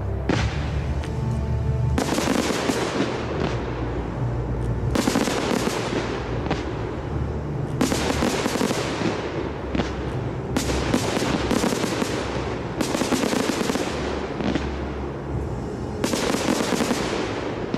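Large fireworks display: rapid volleys of bursting shells and crackling, in dense clusters of bangs, over music played with the show.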